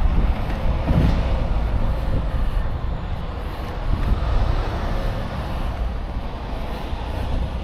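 Heavy diesel machinery running nearby: a steady low rumble.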